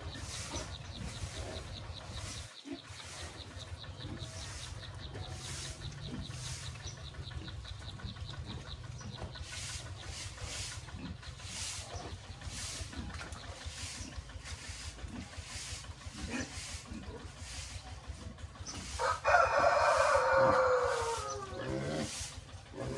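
A rooster crows once near the end, a long call that falls in pitch as it ends, over a steady low background with a faint, regular pulsing.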